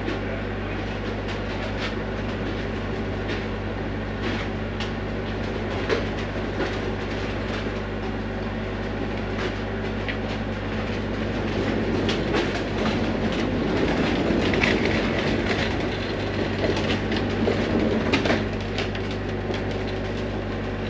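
A steady low mechanical hum under continuous rattling and clattering with scattered clicks, growing louder and busier past the middle.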